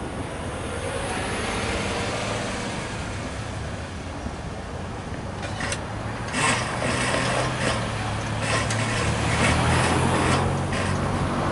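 Road vehicles, a pickup truck and then an SUV, driving over a railroad grade crossing. A steady rumble for the first few seconds, then from about halfway, engines running and tyres knocking several times as they roll over the rails close by.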